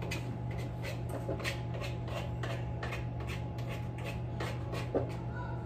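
Faint kitchen handling sounds: irregular soft scrapes and clicks of a utensil working in a mixing bowl and things moved on the counter, over a steady low hum, with one sharper knock about five seconds in.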